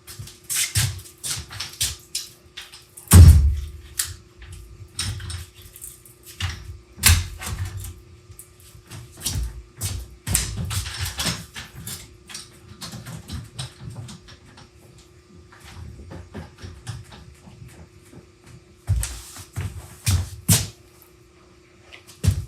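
Large woodworking clamps being handled and hung on a wall rack: irregular knocks and clatters, with a heavy thud about three seconds in, over a faint steady hum.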